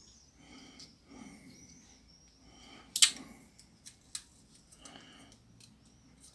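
Small clicks and faint scraping of a thin metal pick prying at a mobile phone's metal frame and circuit board, freeing a glued part. The sharpest click comes about three seconds in, with a few lighter ticks after it.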